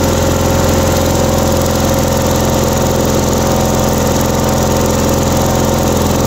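Engine running at a steady speed, a loud even hum with a hiss over it.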